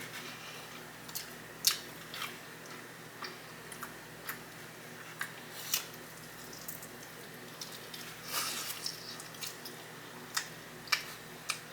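A person eating Cajun chicken wings close to the microphone: quiet biting and chewing, with scattered sharp mouth clicks and smacks and a busier stretch of chewing near the end.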